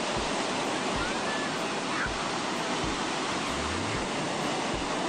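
Ocean surf breaking and foam washing up the beach: a steady, unbroken rushing.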